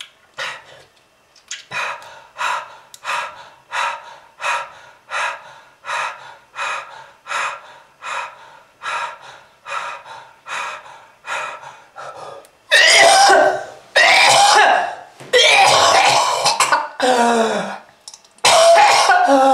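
A person in a smoker's coughing fit: a long run of short, regular coughs about two a second that slowly get weaker, then, about two-thirds of the way through, loud drawn-out hacking coughs with a strained, groaning voice in them.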